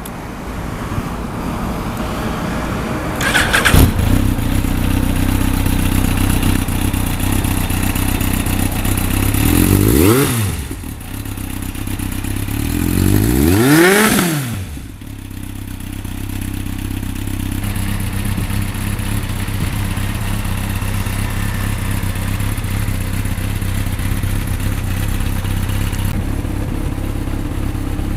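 A Yamaha XJR1300's air-cooled inline-four, breathing through a Nojima titanium full exhaust system, catches about four seconds in and settles to a steady idle. It is revved twice, around ten and fourteen seconds in, each rev rising and falling back within about a second and a half, then idles steadily.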